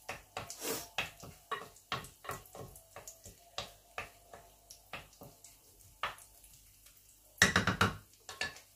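Wooden spoon stirring sliced almonds in an earthenware cazuela: irregular light scrapes and taps, with a louder clatter near the end.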